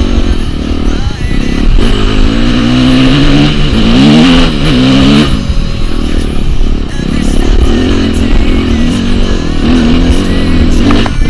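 Dirt bike engine revving up and down as it rides a slippery trail, its pitch rising and falling with the throttle. It climbs steeply about four to five seconds in, then drops off sharply.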